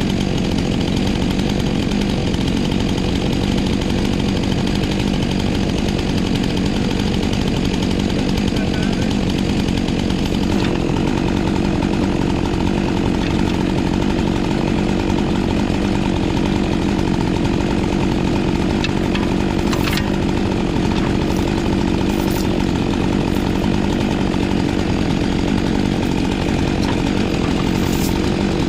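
Two-stroke chainsaw running steadily under throttle at an even pitch, with a slight change in its tone about ten seconds in.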